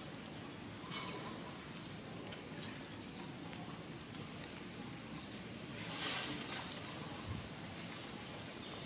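A bird gives a short, high chirp that hooks upward, three times about three seconds apart, over steady outdoor background noise. A brief soft rustle comes a little past the middle.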